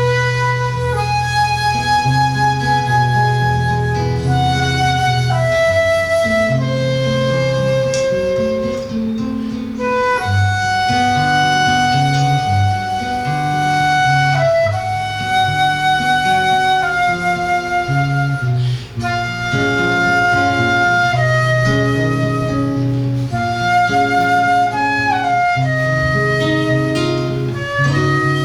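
Flute playing a melody of long held notes over a seven-string guitar plucking a bass line and chords, in an Argentine milonga style.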